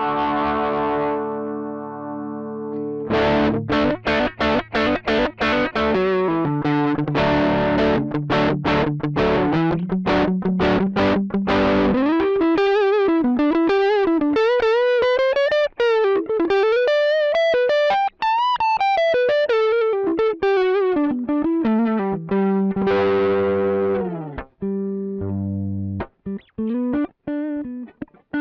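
Electric guitar played through a Joyo American Sound amp-simulator pedal, a Fender Deluxe-style tone with some overdrive. A held chord rings out, then quick rhythmic chord strumming, then a single-note lead line with string bends and vibrato in the middle, and chords again near the end.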